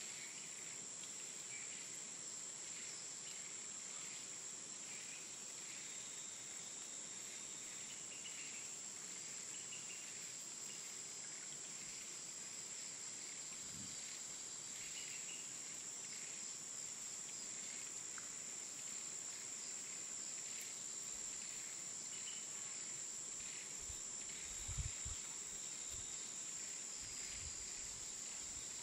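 Forest ambience dominated by a steady high-pitched insect drone, with scattered short chirps over it. A few low thumps come near the end.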